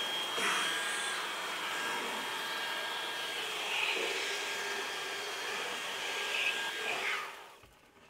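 Kobalt 24V brushless cordless stick vacuum running on Turbo with its crevice tool, a steady rush of air with a high motor whine. It is switched off about seven seconds in and winds down.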